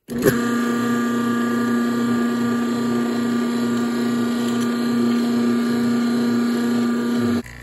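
Fast Vac 3 CFM, 1/3 hp electric vacuum pump switching on with a click and then running with a loud, steady hum, pulling down a vacuum on a resin-filled chamber; it cuts off abruptly near the end.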